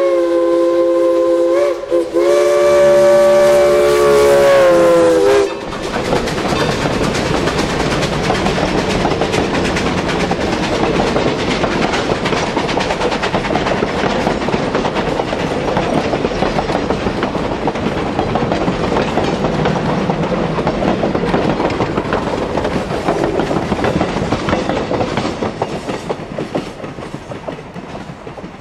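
Steam locomotive's chime whistle blowing a long blast of several notes at once, briefly broken about two seconds in. Then the locomotive and its passenger coaches roll past with a steady clatter of wheels over the rails, fading away near the end.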